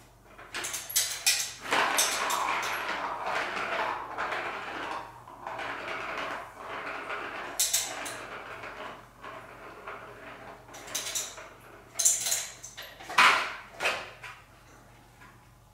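A light-up plastic ball rolling around a plastic circuit-track cat toy as cats bat at it: a rolling rumble through the first few seconds, then several sharp plastic clacks in the last few seconds as the ball is struck.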